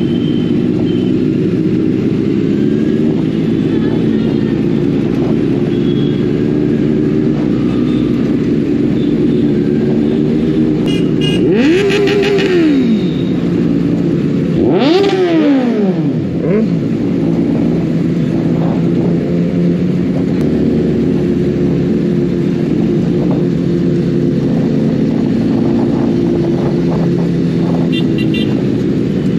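Motorcycles riding together in a slow group: a steady mix of engines running, with two revs rising and falling close together about halfway through.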